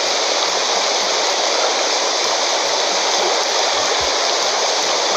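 Steady rushing hiss of an indoor diving-pool hall's ambience, with no voices over it.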